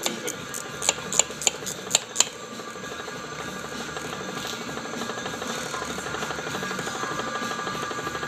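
Metal lathe running with a steel bearing cap spinning in the chuck, a center drill in the tailstock chuck feeding into the centre of its face. A handful of sharp clicks in the first two seconds or so, then a steady whir with a rubbing hiss that builds slightly as the drill cuts.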